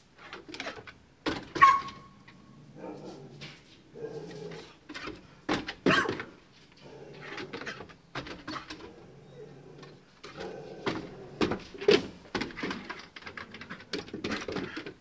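A dog running and leaping about on a wooden deck: irregular thumps and scrabbles of its paws on the boards, with short dog vocal sounds among them.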